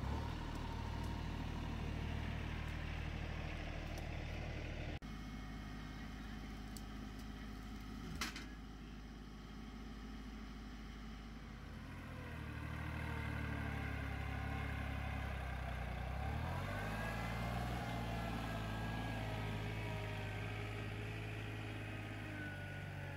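Compact John Deere tractor engines running steadily, in several cut-together clips. A single sharp click comes about a third of the way in, and later the engine note dips and then climbs again.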